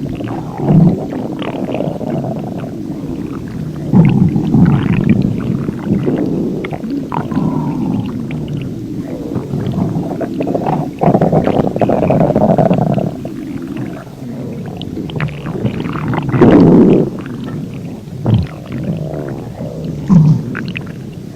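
A person's stomach growling and gurgling without a break: deep, continuous rumbling with loud swells every few seconds and short rising and falling gurgles in between.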